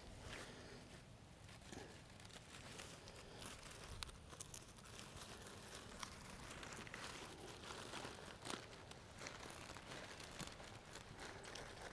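Faint rustling with scattered light clicks, as of something being handled and wedged into place.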